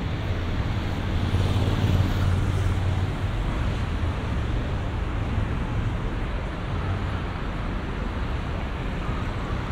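Steady city street traffic noise, with an engine's low hum swelling and easing about one to three seconds in.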